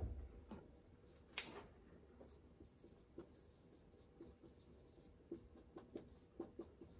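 Faint squeaks and scratches of a marker pen writing on a whiteboard, a run of short strokes, most of them in the second half.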